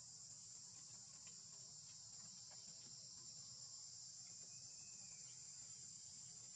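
Faint, steady, high-pitched chorus of insects such as crickets or cicadas, with a few soft ticks.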